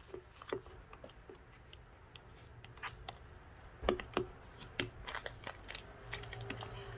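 A silicone spatula scraping thick cream from a ceramic bowl and pushing it into a plastic piping bag, with the bag rustling and a few light taps and clicks, loudest about four seconds in.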